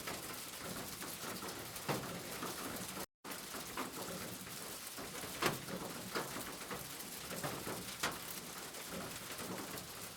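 Steady rain falling, with a few louder single drops striking about 2, 5½ and 8 seconds in. The sound cuts out completely for a fraction of a second about three seconds in.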